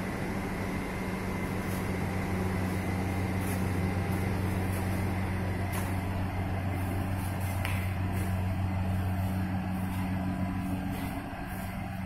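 Won Chang single-needle quilting machine running: a steady low electric hum with light, irregular high ticks. The hum eases briefly near the end.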